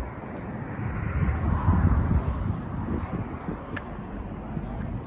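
Steady low rumble of a vehicle on the road, swelling slightly about two seconds in.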